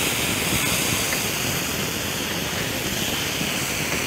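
Marinated chicken pieces sizzling steadily in a grill pan with olive oil.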